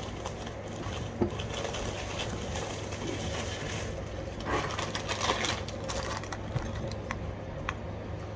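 Steady low hum with a few small clicks and soft rustling, like items being handled on a table.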